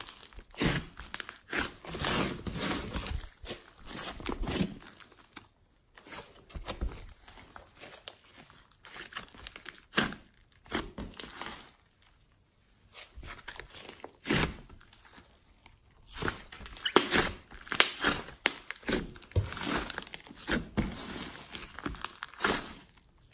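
Hands squeezing, folding and pressing a thick glossy slime mixed with clay, foam beads and glitter, giving irregular crackling and squishing in uneven bursts with short pauses.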